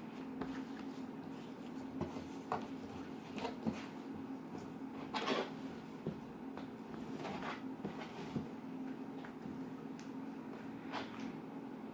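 Scattered short clicks and handling noises, a few every couple of seconds, over a steady low hum.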